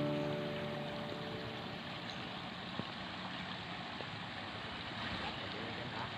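Steady rushing of a swollen river's flowing water, with a single faint tick about three seconds in; guitar music fades out in the first second.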